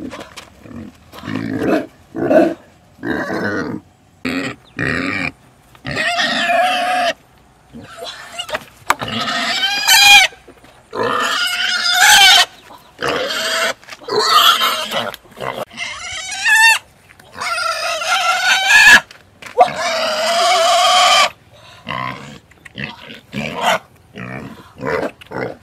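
A young pig squealing loudly again and again as it is grabbed and carried, in long high squeals of about a second each with short breaks between them.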